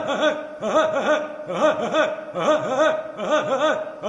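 A man laughing in a steady, machine-like rhythm, a burst of several quick 'ha's about once a second, like a train chugging: the 'train laugh'.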